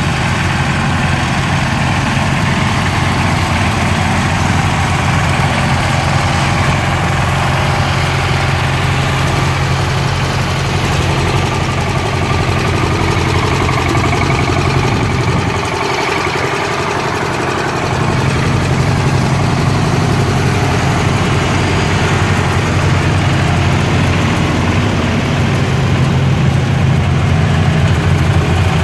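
Cast-iron Kohler K-series garden tractor engines idling steadily, the low engine sound dropping away for a couple of seconds about halfway through and then coming back.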